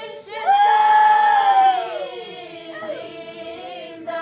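Several voices singing together without instruments. About half a second in, one voice rises to a loud, long held note that slides downward around two seconds in.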